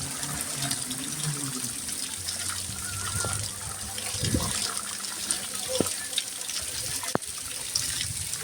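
Heavy rain falling with water running and splashing, a steady rush, with a few short sharp knocks, the clearest about seven seconds in.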